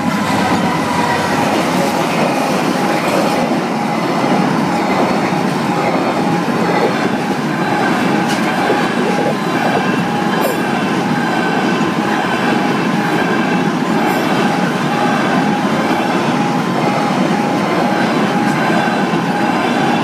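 Freightliner container train passing close by: the diesel locomotive goes past at the start, then the container wagons roll by in a steady stream of wheel-and-rail noise. A few sharp clicks come from the wheels, about 8 and 10 seconds in.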